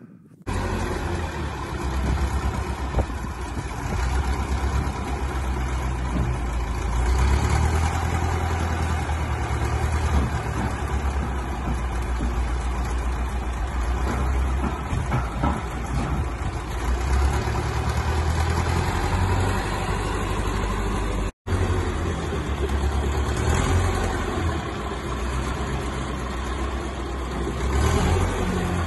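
Diesel engine of an old wheel loader with forks running steadily, working a heavy load, with a few swells in engine speed. It cuts out for an instant about two-thirds of the way through.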